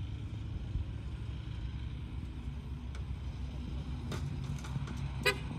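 Low, steady rumble of vehicle traffic and engines on the highway. A few sharp clicks come near the end, the loudest about five seconds in.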